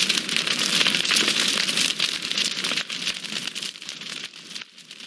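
Dense crackling patter of many small ticks, like heavy rain or a fire crackling, fading out over the last couple of seconds; the upper hiss drops away suddenly near the end.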